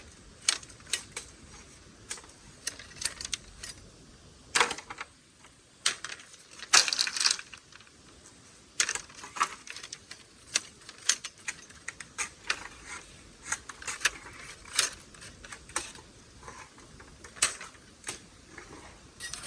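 Irregular light clicks and clatters, several a second, with a louder clattering cluster about seven seconds in.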